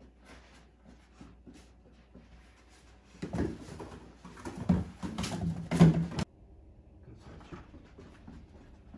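A puppy nosing at cardboard scent boxes on a carpeted floor while a person handles a box: a few seconds of bumping and scuffling that cut off abruptly. Before that there are only faint scattered ticks.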